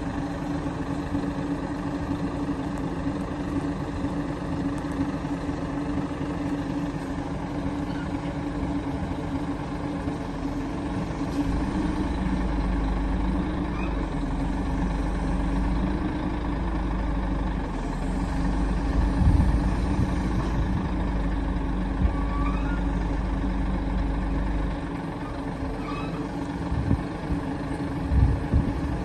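Volvo FM12 truck's D12 straight-six diesel engine running steadily, powering the hydraulics of its Hiab 220C loader crane as the boom unfolds and extends. A heavier low rumble sets in about twelve seconds in and eases off about twenty-five seconds in, and there are a few short clanks from the crane.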